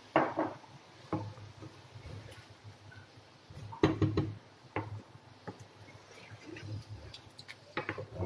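Wooden spatula stirring chicken pieces through watery gravy in a nonstick pan, with scattered knocks and taps of the spatula against the pan, the loudest about four seconds in.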